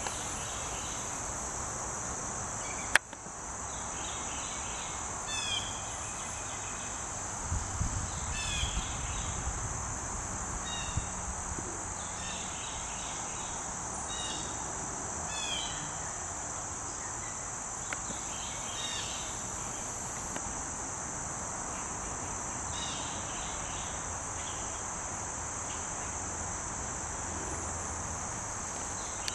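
Steady, high-pitched outdoor insect chorus, with short chirps coming every few seconds. There is a sharp click about three seconds in, and a brief low rumble around eight seconds in.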